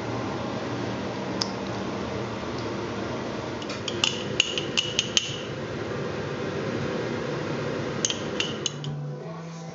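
Kitchenware clinking against a measuring jug as mustard and salt go in for mayonnaise: a single clink about a second in, a quick run of sharp clinks around four to five seconds, and another short run near the end, over a steady background hiss.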